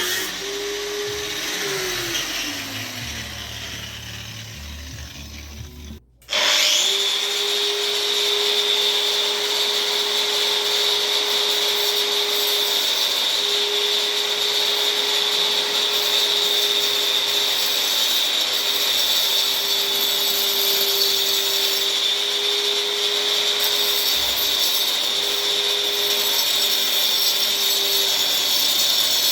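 Angle grinder spinning down after being switched off, slowing and fading over several seconds until it stops. About six seconds in it is switched on again, spinning up quickly to a steady, high-pitched whine at full speed that holds to the end.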